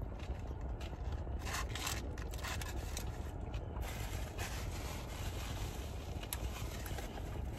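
Chewing a double cheeseburger, with scattered short crinkles of the paper wrapper, over a steady low hum in a car's cabin.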